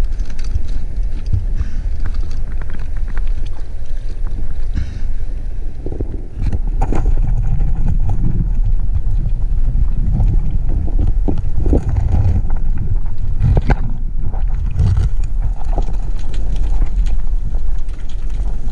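Low, steady wind-and-water rumble on an action camera's microphone, with scattered knocks and bumps from handling. About six seconds in, the hiss up high drops away and the sound turns muffled as the camera goes underwater.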